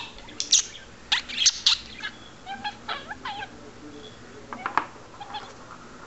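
Pet budgerigar chattering: a run of short, sharp chirps and warbling notes, loudest and busiest in the first two seconds, with a few more chirps a little before the fifth second.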